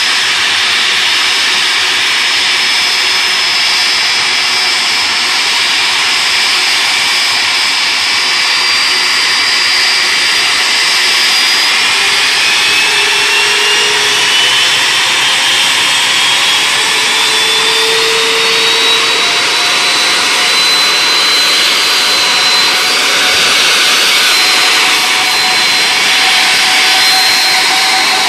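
Rolls-Royce RB211-524GT turbofan on a Boeing 747-400 running loud and steady during a ground engine run. From about twelve seconds in it slowly spools up, its whine rising in pitch, and the whine then holds steady near the end: power is being gradually increased.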